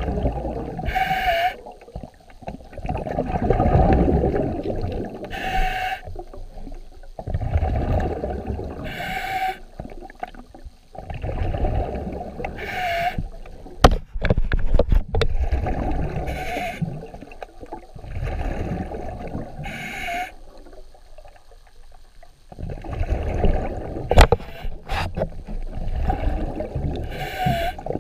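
Muffled, churning water noise picked up by a camera held underwater, swelling and fading. A short breath-like hiss comes through about every three and a half seconds, typical of a swimmer breathing through a snorkel. There are a few sharp knocks of the camera being handled.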